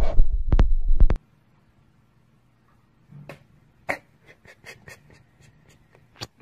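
A few sharp knocks over a low rumble that cut off suddenly about a second in, then faint scattered clicks and knocks, two of them louder.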